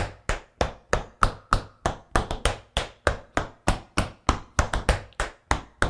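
Tap shoes striking a wooden floor in an even run of sharp taps, about three a second with some strokes doubled: toe and heel drops danced in double time with a double heel.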